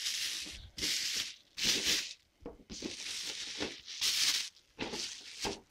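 Packaging being unwrapped by hand: crinkling and rustling in a string of short bursts, about seven in all, as the wrapping is pulled off the figure's box.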